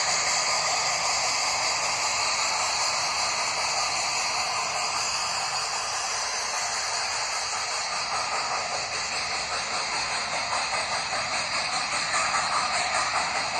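Model train of steam locomotives and passenger cars running past on tabletop track: a steady hiss that eases off as the locomotives go by, then a quick, even clicking of car wheels over the track joints near the end.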